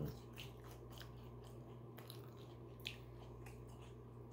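A person chewing a mouthful of chicken salad sandwich: faint, irregular wet mouth clicks, with one slightly sharper click about three seconds in, over a steady low hum.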